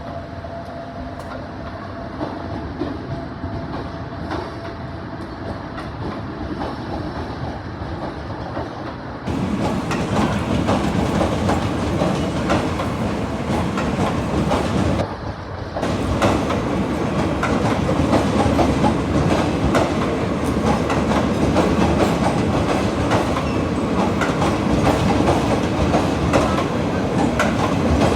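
Passenger express train running along the track, wheels clicking steadily over the rail joints. The sound gets louder and brighter about nine seconds in, with a brief dip around fifteen seconds.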